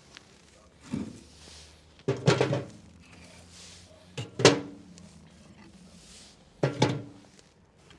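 Four separate knocks of objects being handled, each with a brief ring, the loudest a little over two seconds and about four and a half seconds in.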